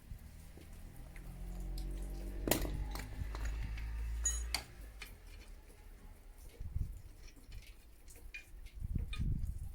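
Metal hand tools clicking and clinking against motorcycle engine parts during disassembly. A low steady hum runs under the first few seconds and cuts off suddenly about four and a half seconds in.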